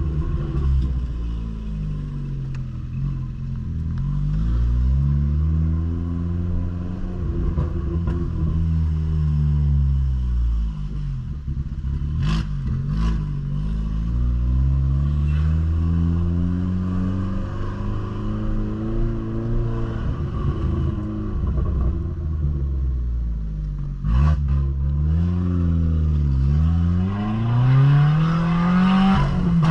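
Ford New Fiesta exhaust, fitted with a diffuser ahead of the mufflers, rumbling as the car drives. The engine note climbs and falls in several long sweeps as it accelerates and eases off, with a few sharp clacks about halfway through and again later.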